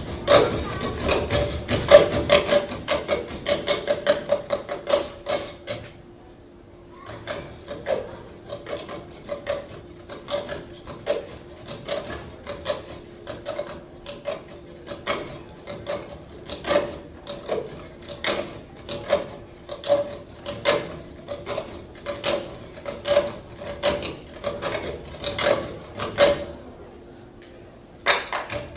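Cup rhythm percussion: a cup tapped, knocked and slid on a tabletop in a fast, steady rhythm. It breaks off briefly about six seconds in and again near the end.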